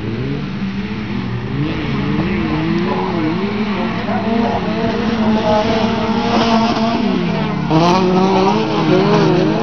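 Engines of touring-class autocross cars over 1600 cc racing on a dirt track, revving up and down over and over as the drivers work the throttle. Near the end the pitch drops sharply and climbs again.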